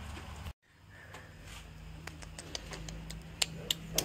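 Light clicks and taps of tools and clutter being moved around while someone rummages through a crowded storage shed, coming more often from about two and a half seconds in. The sound cuts out completely for a moment about half a second in.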